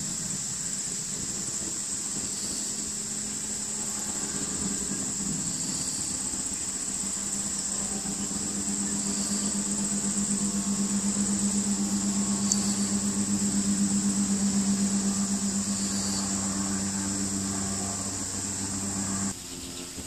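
Steady high-pitched drone of insects singing outdoors, with a low pulsing mechanical hum that grows louder in the second half. Both stop abruptly shortly before the end.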